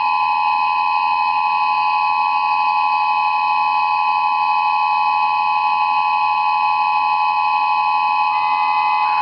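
Several electronic warning sirens sounding a steady alert signal together: a loud cluster of unwavering tones of slightly different pitch, held without change.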